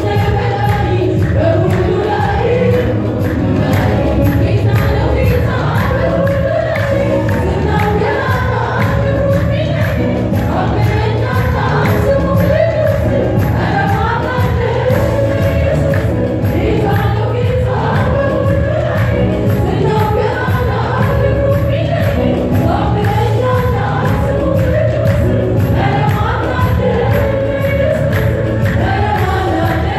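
Women's choir singing a gospel song with hand-clapping in time, over a steady beat.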